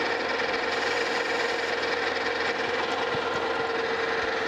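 Metal lathe running with its spindle at high speed: a steady whine from the headstock over a constant mechanical hum.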